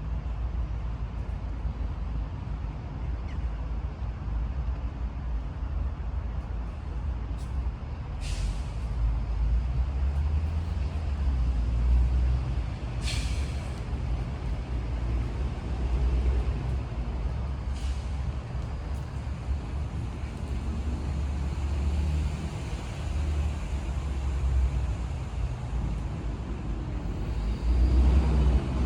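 Steady low rumble of road traffic, with three short hisses a few seconds apart and the rumble swelling near the end.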